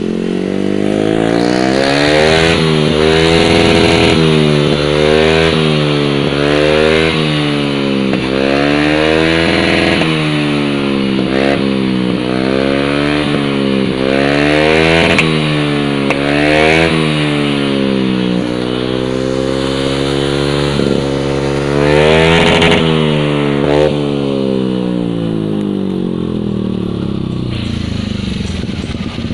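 Yamaha Aerox single-cylinder scooter engine breathing through a Proliner MAX 1 aftermarket exhaust, revved in quick repeated blips about once a second, each rising and falling back. Near the end it settles to a steadier, lower idle.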